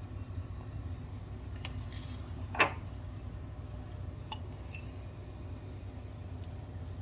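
A metal ladle knocks once, lightly and sharply, about two and a half seconds in, with a few fainter ticks of utensils around it, over a low steady hum.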